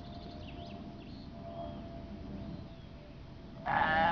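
A farm animal bleats near the end: one loud call with a wavering pitch. Before it, faint bird chirps sound over a low background noise.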